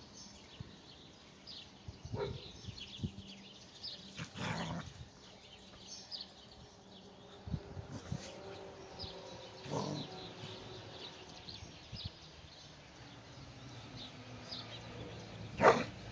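A dog making a few short calls spaced well apart, the loudest near the end.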